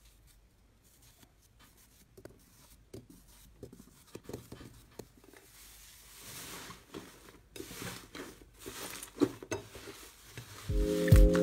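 Fluffy slime being pressed and pulled apart by hand: sparse soft clicks and pops at first, then a denser sticky crackling and tearing that grows louder from about six seconds in as the slime is stretched. Music with a bass beat comes in near the end.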